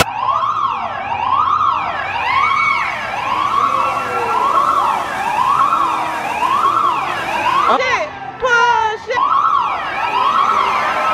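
Siren sound effect played over a show arena's loudspeakers, wailing up and down about once a second as a staged warning alarm; about eight seconds in it breaks for roughly a second into a different wavering tone before the wail resumes.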